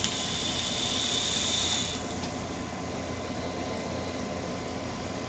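A vape's dripping atomizer on a Sigelei 150 TC mod, fired and drawn on for about two seconds: a hiss with a thin high whistle that stops sharply. A fainter steady hiss follows.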